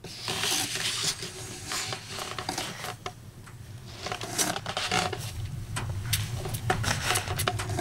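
Close-up rustling of bedding and a hand-held camera being handled, with many small clicks and scrapes.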